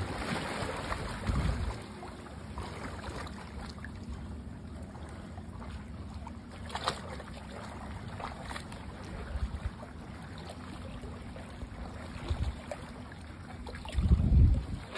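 A splash as a person drops off a ladder into shallow sea water, then a steady wash of water and wind with a few small clicks. Near the end a short, loud low rumble of wind on the microphone.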